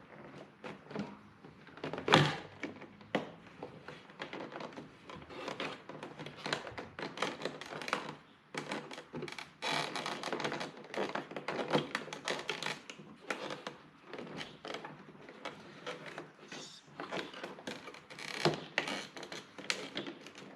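Plastic interior door trim on a Volvo 740 being worked loose and handled, with irregular clicks, taps and knocks and one loud thunk about two seconds in.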